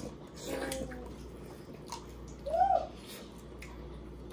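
Wet mouth sounds of eating seafood: slurping and sucking, with small clicks and a brief rising-then-falling tone about two and a half seconds in.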